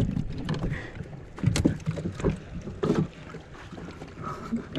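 Irregular knocks and thumps inside a small open boat, about three strong ones a second or so apart, over a low rumble of wind and water.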